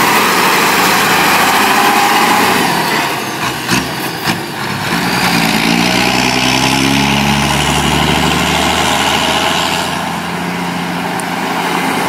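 Heavy diesel truck carrying a CAT 320D excavator, its engine running under load as it drives past and pulls away. There are a few sharp clicks about four seconds in, then the engine revs rise and level off as it accelerates.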